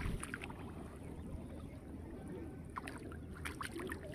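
Hands groping and sloshing in shallow muddy water, with a few small splashes and sloshes about three seconds in.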